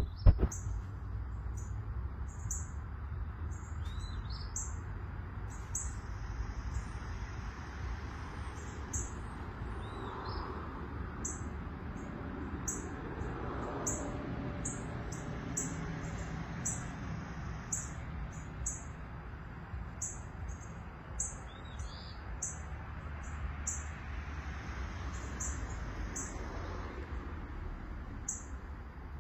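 Small songbirds chirping in the trees: short, very high chirps repeating about once or twice a second, with a few lower, falling calls now and then, over a low steady rumble.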